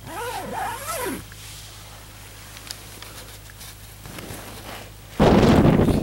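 Strong wind buffeting the microphone, coming in suddenly about five seconds in and by far the loudest sound. Near the start, a short call that rises and falls in pitch several times.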